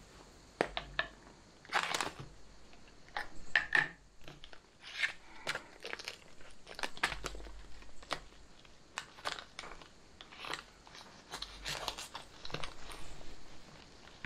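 Crinkling and crackling of a freeze-dried meal pouch as it is handled and worked flat on a wooden table, in irregular bursts of sharp crackles.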